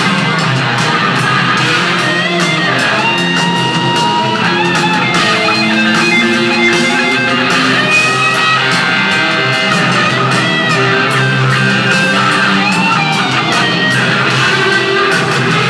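Live rock band playing loud, led by electric guitar with notes bending up and down in pitch.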